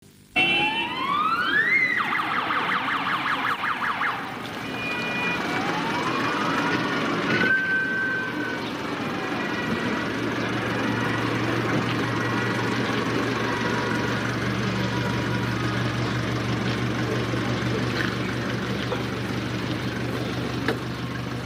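A siren winds up in a rising wail, switches to a rapid yelp, rises again and holds a steady tone, over the first nine seconds or so. After that, a steady low hum runs under a noisy background.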